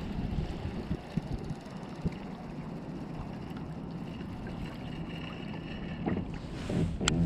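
Wind rumbling on the microphone, with a few faint knocks and a sharp click near the end.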